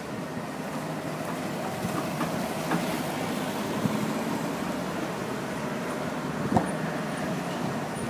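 Cars and a van driving slowly past on a dirt road, their engines running steadily, with a sharp knock about two-thirds of the way through.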